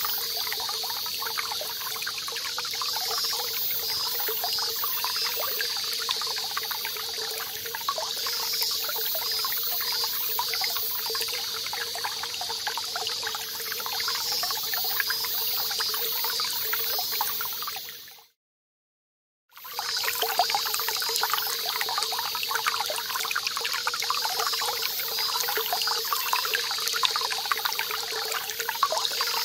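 Small stream running, with cicadas singing in repeated pulses above it. The sound cuts out for about a second and a half about two-thirds of the way through, then the same stream and cicadas resume.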